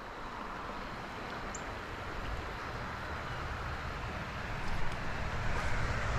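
Trout stream water running: a steady rush of flowing water that gets a little louder about three-quarters of the way through.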